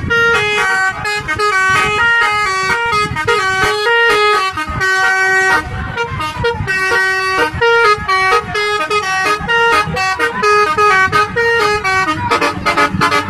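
A bus's telolet horn playing a fast tune: a run of short horn notes stepping quickly from one pitch to another.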